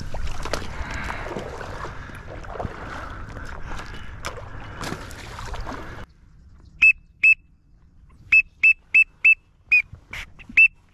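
Water splashing and sloshing as a hunter wades among floating duck decoys to move them. About six seconds in this gives way to short, high, steady whistle peeps from a duck whistle call: a pair, then a quick run of five, then several more, calling in birds.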